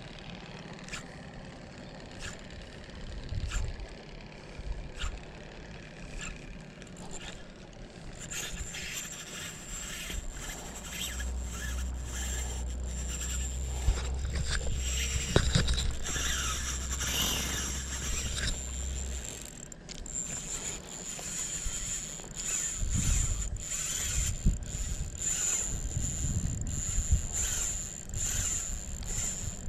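Spinning reel being cranked to retrieve a cast lure: mechanical ticking and a steady high whir as the line comes in, with gusts of wind rumbling on the microphone.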